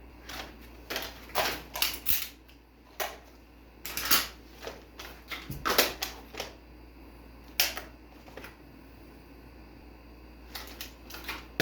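Irregular sharp clicks and snaps of airsoft guns being fired and handled, in a quick string with louder single cracks. They stop for about two seconds, then more clicks come near the end.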